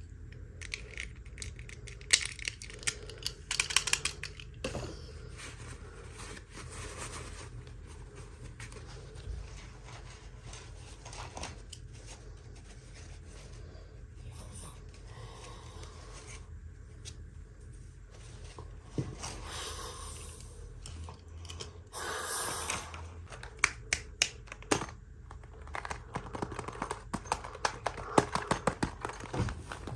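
Toy packaging being unwrapped by hand: plastic crinkling and tearing in a few short bursts, between many small clicks and taps of small plastic pieces being handled.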